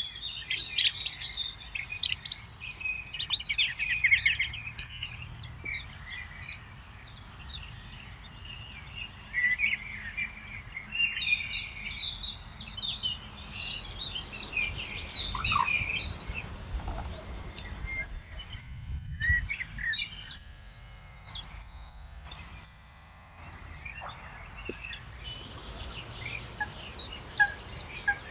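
Several small songbirds chirping and singing over one another, with quick trills and short notes, thinning out for a few seconds past the middle and picking up again near the end, over a faint low background rumble.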